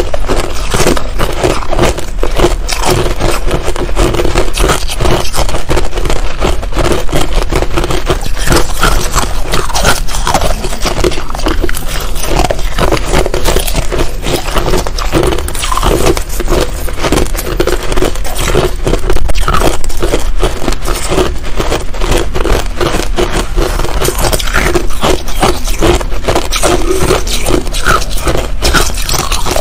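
Close-miked crunching of finely crushed ice being chewed: a dense, continuous run of crisp crackles and crunches without a break.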